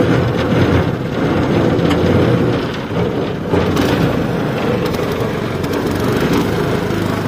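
Small outboard motor on a narrow river boat running steadily under way, a dense low rumble.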